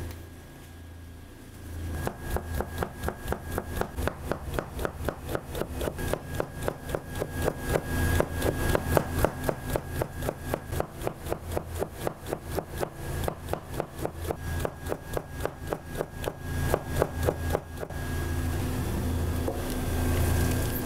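A knife chopping rolled thin egg crepes into fine strands on a plastic cutting board: quick, even cuts at about four a second. The cutting starts about two seconds in and stops a few seconds before the end.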